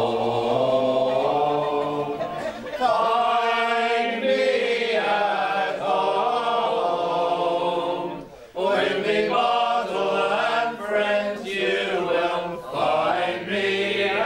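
Several men singing a folk song chorus together in long, held lines, with a short break for breath about eight and a half seconds in.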